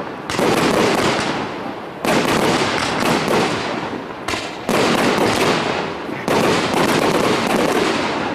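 Aerial fireworks bursting overhead in quick succession: four big bursts about two seconds apart, each a sudden bang followed by a dense, fading crackle.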